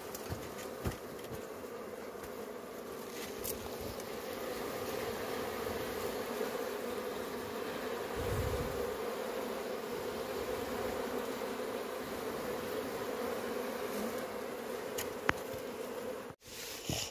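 A colony of honeybees buzzing around their combs: a steady, dense hum that swells a little after the first few seconds.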